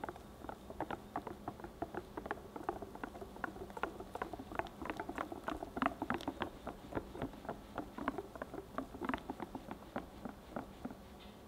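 A whisk beating thick cheesecake batter in a glass bowl: a fast, uneven run of wet clicks and slaps, several a second, stopping just before the end.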